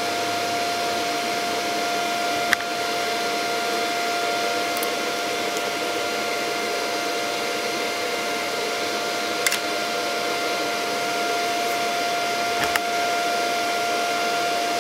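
Kentaro MMA-160 inverter stick welder switched on and idling, not yet striking an arc: a steady fan hiss with a steady whine over it. Three short sharp clicks come in between, as the electrode rod is handled and fitted into its holder.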